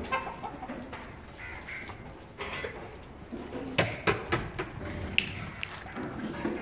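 Sojat goat kids walking on a concrete yard: a brief bleat at the start, then their hooves clicking and scuffing, with several sharp clicks a little past the middle.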